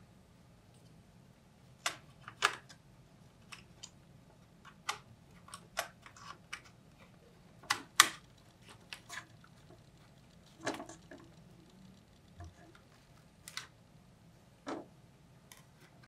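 Sharp, irregular plastic clicks and taps from an Asus Q405UA laptop's casing as its keyboard deck is handled and pressed down onto the chassis, with the loudest click about 8 seconds in. A faint steady hum lies underneath.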